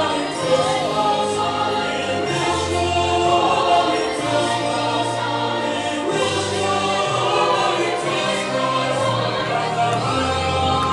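A choir singing with accompaniment, several voices holding long notes over a bass line that moves every second or so.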